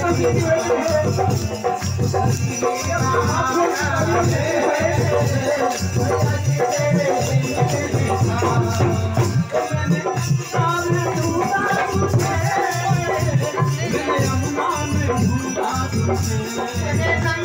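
A bhajan (Hindu devotional song) sung live by a man into a microphone over a loudspeaker system, backed by a steady beat of drum and jingling, rattling percussion.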